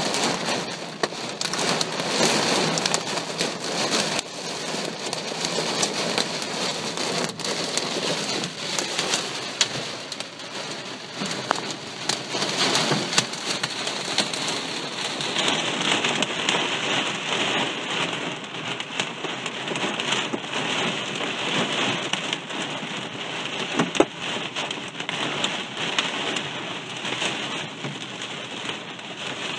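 Heavy thunderstorm rain pouring steadily and drumming on surfaces, with a sharper knock about two-thirds of the way through.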